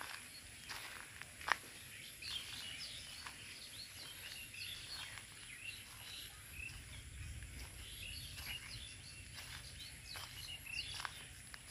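Small birds chirping repeatedly in rural countryside, over a steady high-pitched hiss and a low rumble. There is a sharp click about a second and a half in.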